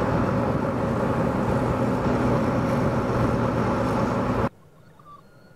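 Volvo FH16 road train driving at speed, heard from a camera mounted on its side: a steady engine drone under loud road and wind rush. It cuts off abruptly about four and a half seconds in, leaving a much quieter background.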